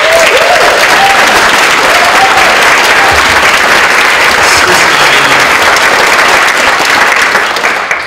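An audience applauding loudly. It swells just before the start and fades off near the end.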